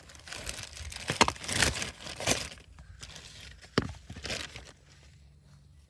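Packaging crinkling and rustling in irregular bursts as a new replacement starter is handled, with a few sharp clicks and knocks.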